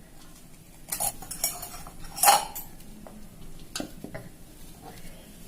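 Kitchen utensils and dishes clinking and knocking as someone handles them, with a few separate strikes and the loudest a little over two seconds in.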